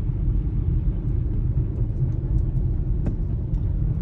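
Steady low rumble of a car on the move, heard from inside, with a few faint clicks, the clearest about three seconds in.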